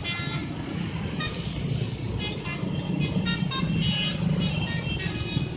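Steady road traffic rumble with a bus's multi-tone telolet horn sounding short bursts of changing musical notes.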